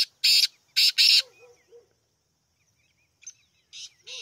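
Black francolin calling: a quick run of four loud, harsh, rasping notes in the first second. A fainter phrase of the same grating notes follows from about three seconds in.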